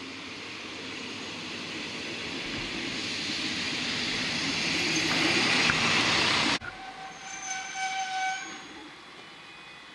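ČD class 814 Regionova diesel railcar pulling in along the platform, its engine and wheel noise growing louder as it comes close. About two-thirds in, the sound cuts off abruptly, and a railcar horn then sounds a steady note over a fainter rumble.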